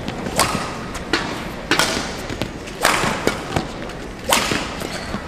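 Badminton rackets striking the shuttlecock in a rally, sharp cracks about once a second with fainter hits between, echoing in a large indoor hall.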